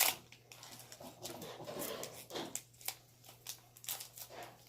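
Foil Pokemon booster pack wrapper and cards being handled: light, scattered crinkling and crackling, with a sharp snap at the very start.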